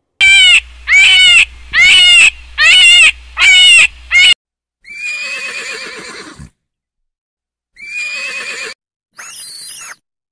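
Horses neighing: a run of five short, loud, wavering calls about a second apart, then a longer whinny that falls in pitch, and two shorter calls near the end, the last a high squeal.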